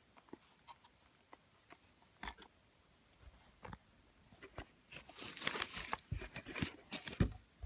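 Small cardboard box with a clear plastic window, holding a 1:64 diecast car, handled in the fingers: scattered light taps and clicks, then dense crinkling and rattling from about five seconds in, ending with a sharper knock near the end.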